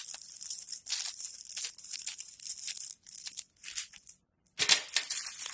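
Small plastic bags of diamond painting drills crinkling and crackling as they are handled and moved about. The sound stops briefly about four seconds in, then picks up again.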